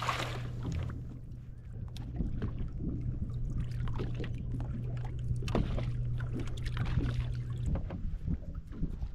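Small waves lapping and slapping against the hull of a bass boat in irregular splashes, over a steady low hum that stops about eight seconds in.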